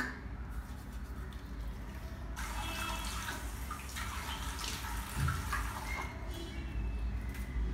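Tap water running and splashing into a sink as a face mask is washed off, strongest from about two seconds in to six seconds in. A short sharp click right at the start.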